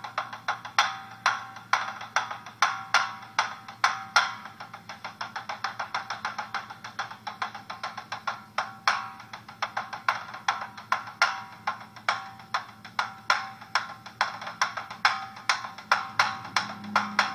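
Japanese taiko drums struck in a rapid free-form midare-uchi run: an uneven stream of sharp strokes, about five a second, with some hit much harder. The strokes sound bright and thin, with little bass.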